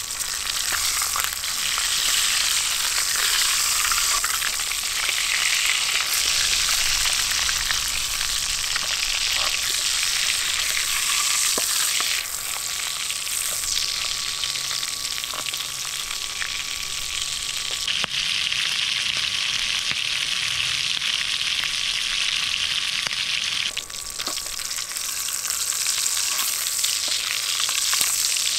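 A slice of pork sizzling steadily in hot bacon grease in a titanium fry pan, with occasional light clicks and scrapes of a spatula moving it in the pan.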